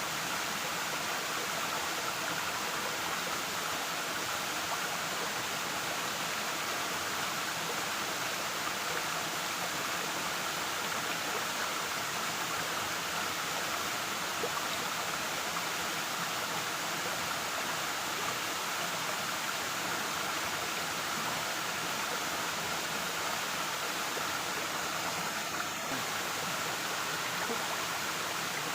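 Waterfall: water falling and rushing in a steady, even roar.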